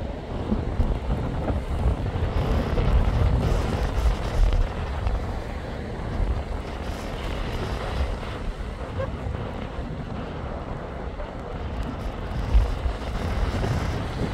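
Winter sea waves breaking and washing on the shore, swelling and easing, with strong wind buffeting the microphone and a heavy low rumble.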